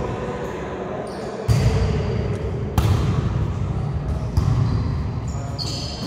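A volleyball being struck three times in a rally: sharp slaps about a second and a half apart, echoing in a gymnasium.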